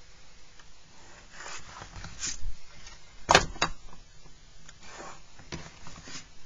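Plastic set square being slid and repositioned on drawing paper against a straight edge: soft scraping with a few sharp clicks and knocks, the loudest a little past halfway.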